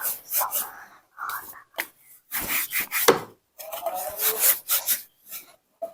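Hands squishing and pulling sticky jelly glitter slime: an irregular run of short squelching, crackling noises with brief pauses. There is one louder knock about three seconds in.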